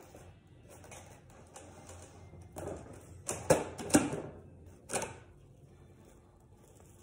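Plastic cling film pulled off its roll and stretched out, crackling, with three sharp snaps between about three and a half and five seconds in as it is torn free.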